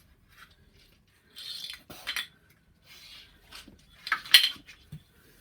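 A strap (band) clamp being picked up and handled: a few short clinks and rattles of its hardware, the loudest clatter about four seconds in.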